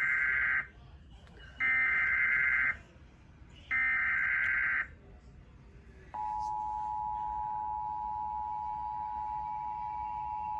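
Emergency Alert System broadcast opening: three short bursts of buzzing SAME header data tones about a second apart, then, about six seconds in, the steady two-pitch EAS attention tone starts and holds. Together they announce a severe thunderstorm warning.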